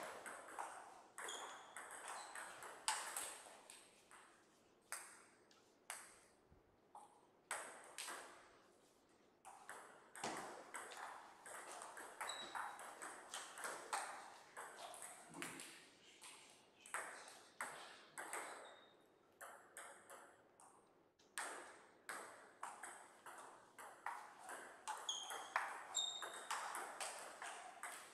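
Table tennis ball clicking off the bats and the table in quick rallies, with short breaks between points.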